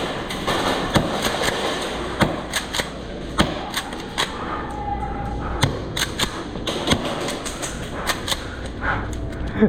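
Scattered airsoft gunfire: irregular sharp shots and cracks, single and in short quick runs, from several guns across the field.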